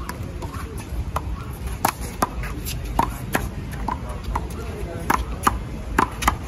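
Handball rally: a rubber handball slapped by bare or gloved hands and smacking off the wall, a quick irregular run of sharp hits, roughly one every half second.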